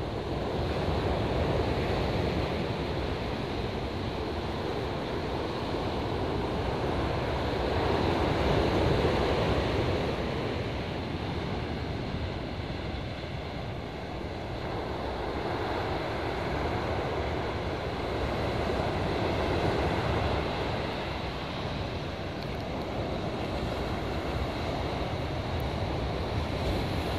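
Ocean surf breaking on a sandy beach, swelling and easing in slow surges about every ten seconds, with wind rumbling on the microphone.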